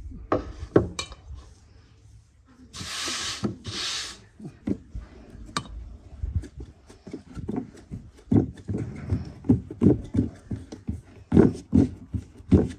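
Hands patting and pressing a ball of dough flat on a floured wooden board: a run of soft, irregular thumps that come faster in the second half. Two short hissing rustles come about three and four seconds in.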